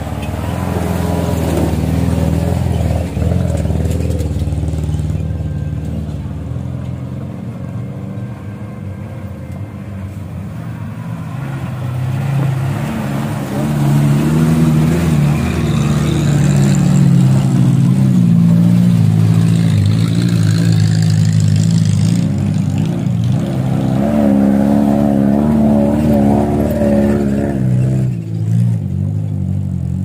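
A motor vehicle engine running and revving, its pitch rising and falling. It is loudest in the second half and drops away near the end.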